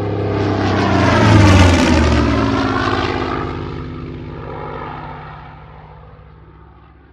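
Supermarine Spitfire's V12 piston engine and propeller in a low flypast. It grows louder to a peak about a second and a half in, drops in pitch as it passes, then fades away.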